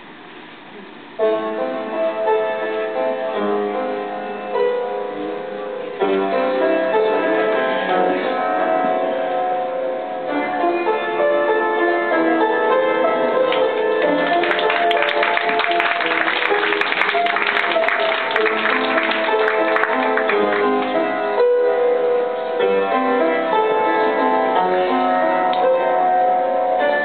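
Piano playing, starting about a second in and growing fuller about six seconds in, with a dense run of quick notes in the middle.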